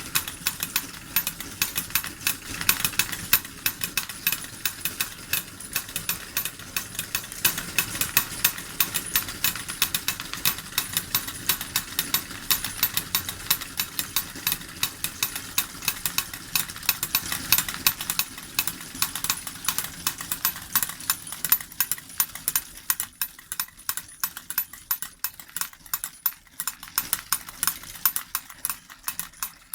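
Model steam engine driving two small model forge hammers, which clatter with a steady run of sharp knocks, several a second, over a faint running hum. The clatter grows softer near the end.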